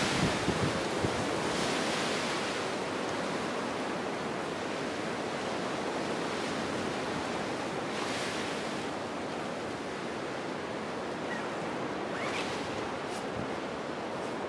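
Wind rushing steadily, with a few gusts swelling briefly.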